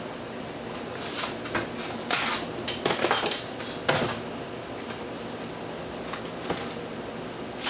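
Parts of a dismantled box fan clattering and clinking as they are handled and set down, a run of knocks in the first half, then quieter with one more small knock.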